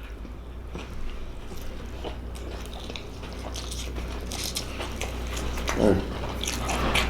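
Close-up biting and chewing of a vegan pizza slice topped with Field Roast crumbles: scattered soft crunches and small mouth clicks over a steady low hum, with a short vocal murmur about six seconds in.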